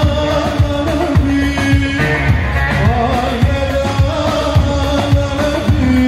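Live Turkish folk-pop wedding music: a man singing into a microphone over a bağlama (saz) band with a steady drum beat, played loud through a PA.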